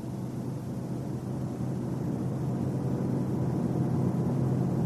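Car driving at road speed: a steady low rumble and drone that grows slightly louder, the kind of noise heard while checking a body shake that builds between 90 and 100 km/h.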